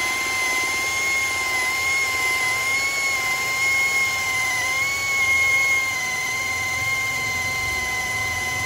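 Hukan 533 21 V cordless drill boring into a block of wood, its motor running under load with a steady whine.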